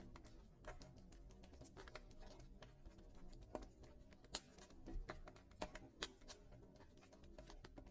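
Wood fire crackling in a fireplace: irregular snaps and pops from the burning logs, a few louder ones in the middle, over a low rumble of the flames.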